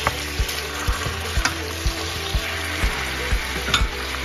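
Cabbage stir-frying in a hot pan, sizzling with soy and oyster sauce, as a wooden spatula tosses it and clicks against the pan a couple of times. Background music with a steady beat of about two thumps a second plays underneath.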